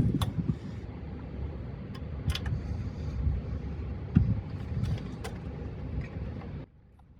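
Bolts being threaded in by hand on a tiller's metal cover: a few light metal clicks and handling noise over a steady background hiss, which cuts off abruptly near the end.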